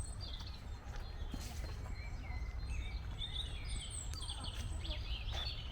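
Several small songbirds chirping and trilling, with short calls overlapping throughout, over a steady low rumble.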